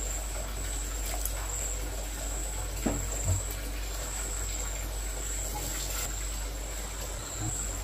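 Chicken-and-rice broth bubbling at a steady boil in an open aluminium pressure cooker, with a couple of small knocks about three seconds in.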